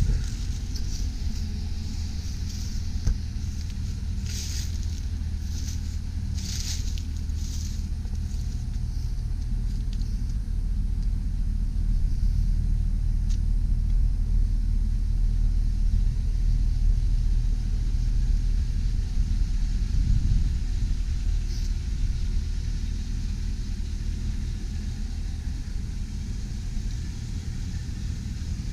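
A 6.0-litre gasoline V8 truck engine idling steadily, a low even hum that grows a little louder around the middle.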